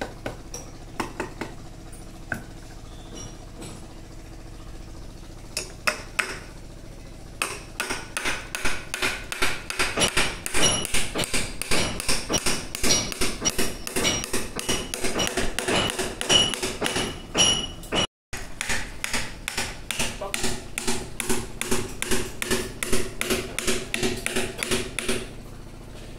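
Claw hammer driving nails through a wooden scaffold upright into a concrete-block wall, each blow a sharp metallic ring. A few scattered blows come first, then steady rapid hammering of several blows a second from about eight seconds in, with one brief break.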